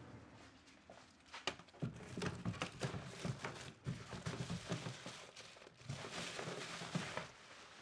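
Light, irregular knocks and clatters mixed with some rustling, as of household objects being handled and moved about.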